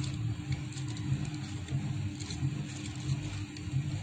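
Steady low rumble with a faint continuous hum underneath, with no distinct clicks or knocks.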